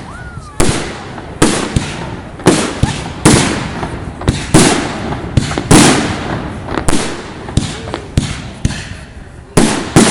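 Fireworks display: aerial shells bursting in a steady series of sharp bangs, about one a second, each followed by a short echoing, crackling tail.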